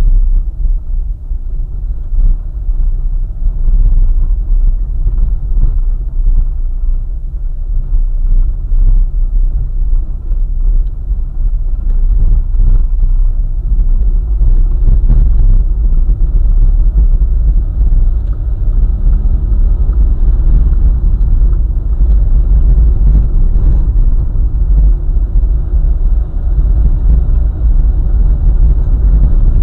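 Vehicle driving along a highway: a steady, deep road-and-engine rumble.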